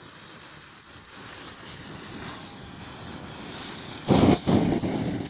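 A steady rushing roar of flame jetting from a burning plastic drink bottle, slowly growing louder, with a loud burst of roaring about four seconds in.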